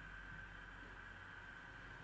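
Faint, steady high-pitched electrical whine over a low hum from the hob as it heats the pan.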